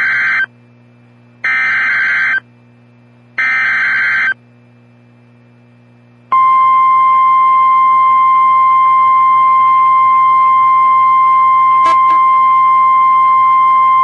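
Emergency Alert System (SAME) header on a NOAA Weather Radio broadcast: three shrill warbling digital data bursts, each about a second long and a second apart. About six seconds in, the steady 1050 Hz weather radio alert tone starts and runs on, announcing a new warning, here a special marine warning.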